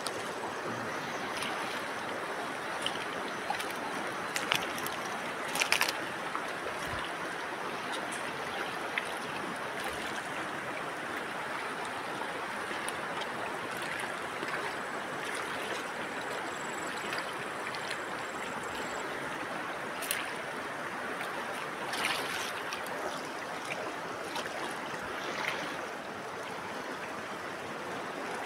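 Steady rushing of a swift river current, with a few short sharp sounds on top of it.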